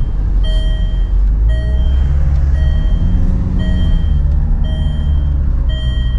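A Land Rover's in-cabin warning chime beeping six times, about once a second, over the engine running at low speed, which rises briefly as the car pulls away.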